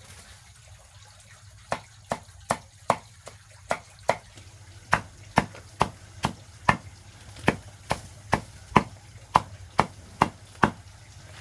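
A blade mincing banana plant stalk into small pieces for chicken feed: a steady run of sharp chopping strikes, about two to three a second, starting about two seconds in.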